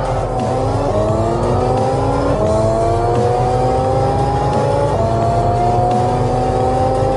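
Car engine at full throttle, pulling hard through the gears of an automatic gearbox: its note climbs steadily, with gear changes about two and a half seconds in and again near five seconds.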